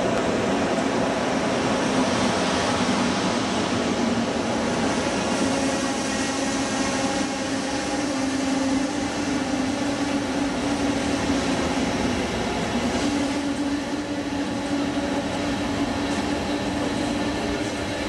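Electric passenger trains running through a large enclosed station hall: a steady rail rumble with a low hum that drifts slightly up and down in pitch. The trains are a red electric locomotive hauling intercity coaches and a red double-deck regional train.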